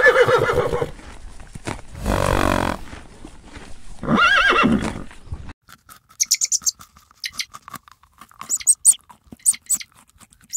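A horse whinnying: one call fading out at the start, another about two seconds in and a third about four seconds in. The sound cuts off about five and a half seconds in and gives way to a run of short, crisp, irregular ticks and clicks.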